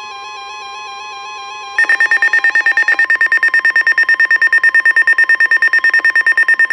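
A weather alert radio sounds its alarm as a rapid, loud pulsing beep, about nine beeps a second, starting about two seconds in. Under it runs the steady 1050 Hz NOAA Weather Radio warning alarm tone, which signals that a warning message is about to be read.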